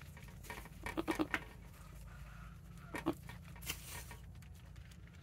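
Doe goat licking her newborn kid, with light wet licking sounds. There is a quick run of short low-pitched calls about a second in and another short call near three seconds.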